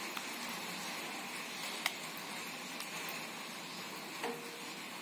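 Thick cake batter being poured and scraped from a bowl into a paper-lined metal cake tin: mostly a faint steady hiss, with a sharp click about two seconds in and a small knock with a short ring a little after four seconds.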